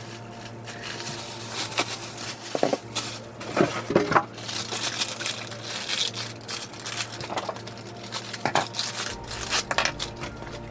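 Plastic packaging crinkling and rustling as it is handled, in irregular crackles with a few louder rustles.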